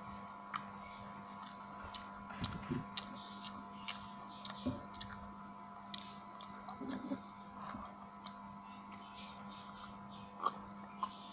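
Close-miked eating sounds: chewing soy-sauce chicken, with small wet mouth clicks and a few light knocks, over a faint steady hum.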